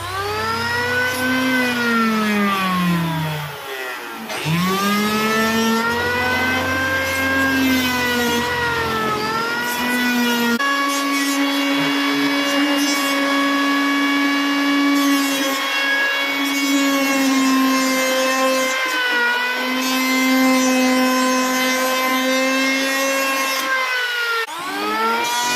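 Electric hand planer running and cutting wood, its high motor whine sagging in pitch as the blades bite and recovering between passes. About four seconds in the pitch dips sharply and rises again, it then holds nearly steady through the middle, and near the end it dips and climbs once more.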